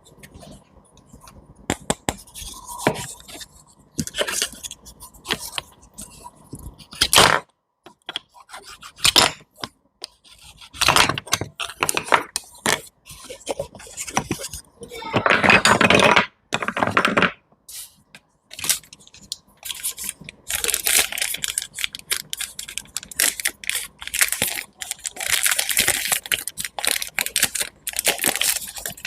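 Close-up sounds of cutting and handling fruit and vegetables: irregular knife and utensil clicks and scrapes, a longer scraping stretch about halfway through, and a dense run of quick crackling clicks through the last third.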